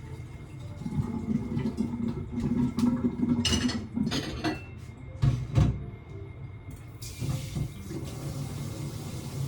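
Water running at a sink, with several knocks and clatters in the middle. A steady rush of water comes in about two-thirds of the way through.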